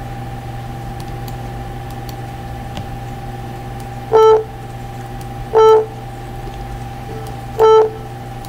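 Three short, loud beeps from a simple TouchDesigner synthesizer, a sine-wave audio oscillator gated by a triggered envelope, one note per click of an on-screen button. The notes start about four seconds in and come a second and a half to two seconds apart, over a steady low hum.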